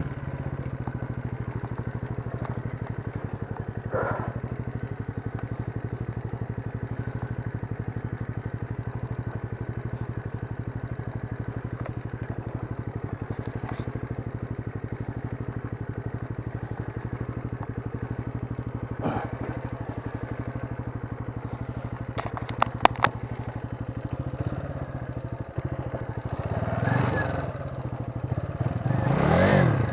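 Junak M12 motorcycle engine idling steadily, with a few sharp clicks a little past twenty seconds in and the engine revving up near the end.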